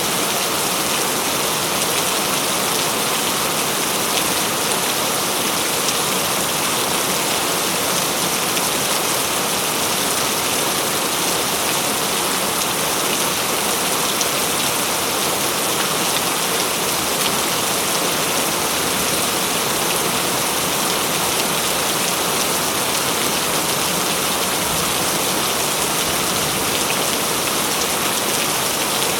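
Heavy rain falling steadily in a forest, a dense even hiss of drops with fine patter of individual drops through it.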